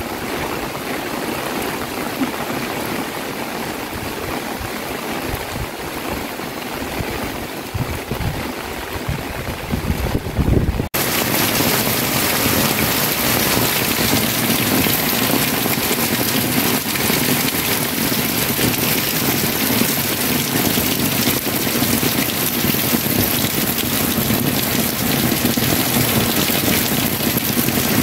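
Steady rain falling. At first it is softer, with irregular low rumbles. About eleven seconds in it cuts to a louder, hissier, even downpour.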